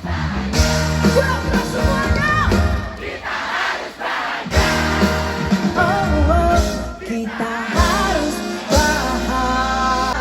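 Live pop band music, loud, with a voice singing over drums and bass.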